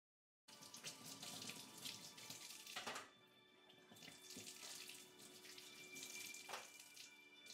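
Kitchen tap running into a sink while dishes are washed, with a couple of brief clatters of crockery. The flow drops about three seconds in, then picks up again.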